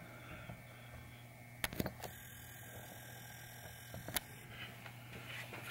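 Faint clicks and taps of hands handling a pinball backglass and pressing its edge trim on: a couple of light clicks a little under two seconds in and a sharper one about four seconds in, over a steady low hum.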